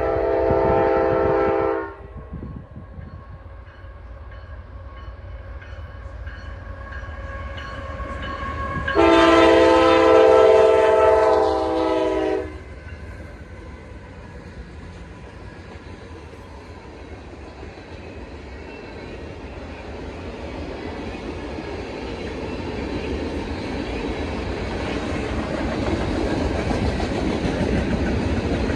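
Railroad locomotive air horn sounding a multi-tone chord: a short blast at the start and a longer one about nine seconds in. After it, the rumble of the approaching train builds steadily louder.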